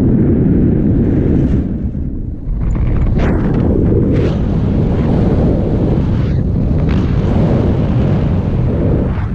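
Wind rushing over the camera microphone in paraglider flight: a loud, rough, low rumble that dips briefly about two seconds in and then picks up again.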